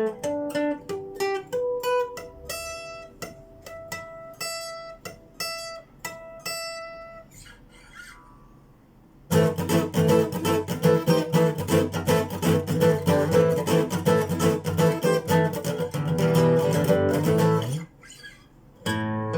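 Phill Pro acoustic guitar being played: single notes plucked one at a time and left to ring for the first several seconds, fading out, then about halfway in, loud, busy strumming of chords that stops briefly near the end and starts again.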